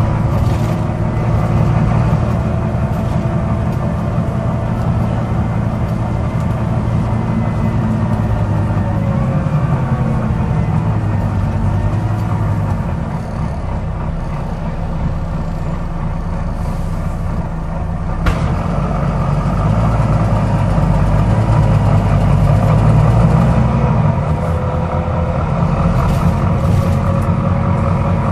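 Volvo B9TL double-decker bus's six-cylinder diesel engine running on the move, its pitch rising and falling as the bus pulls away and slows. An occasional sharp click sounds over it, most clearly about eighteen seconds in: the clicking noise this bus is known to make.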